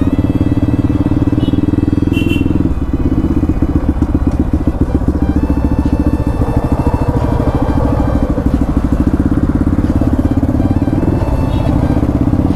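Bajaj Pulsar NS200's single-cylinder engine running at low riding speed, heard from on the bike, with the throttle eased briefly about three seconds in.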